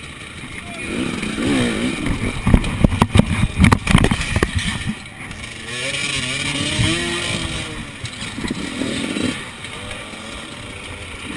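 Enduro motorcycle engine revving, then a run of loud clattering knocks and scrapes as the bike goes down on its side against the log obstacle, followed by the engine revving up and down again.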